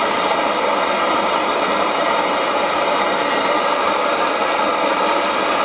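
Handheld gas torch burning with a steady hissing rush of flame while it heats brass parts for brazing.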